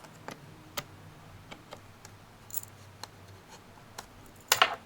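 Light scattered clicks of a small screwdriver working a screw out of a laptop's plastic casing, with a burst of louder clacks near the end.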